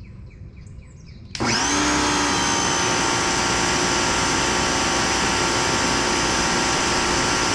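An electric pressure washer's motor and pump kick on suddenly about a second and a half in, when the trigger is pulled. The pitch rises briefly as the motor comes up to speed, then it runs loud and steady with a high whine, under a load of about 1,730 watts.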